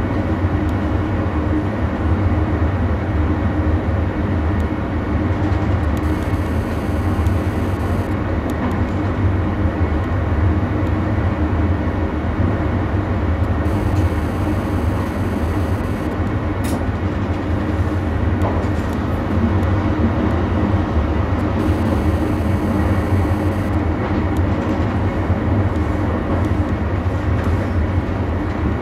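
Passenger train running steadily, heard from inside the driver's cab: a constant low rumble of wheels on the track and running gear.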